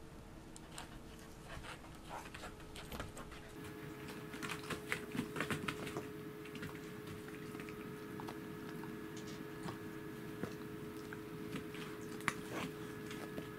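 A kitten and a Welsh corgi playing: scattered clicks and taps of paws and claws on a wooden floor, coming thick and fast near the middle, over a faint steady hum.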